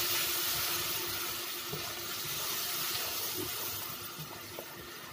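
Tomato purée and onion masala sizzling in hot oil in a kadhai while stirred with a wooden spatula, the sizzle slowly dying down; a few faint spatula knocks. It is frying down towards the point where the oil separates.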